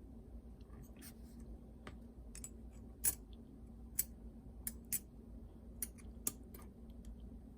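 Scattered light clicks and taps, about a dozen at irregular intervals, as small parts of a cassette walkman are handled and fitted back together, over a faint steady hum.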